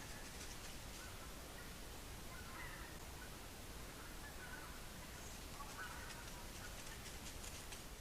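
Faint bird calls: a few short calls, one every second or two, over a steady background hiss.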